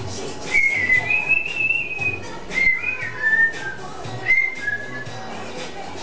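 African grey parrot whistling a short run of clear notes: a long note that rises slightly, then several shorter notes that step down in pitch.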